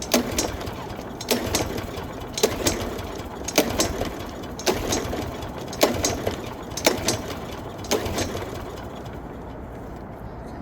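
Lawn mower pull-started again and again, about eight pulls roughly a second apart, each with a sharp clack from the recoil starter; the engine does not catch. The mower has sat for four years with old gas, and its fuel line is blocked.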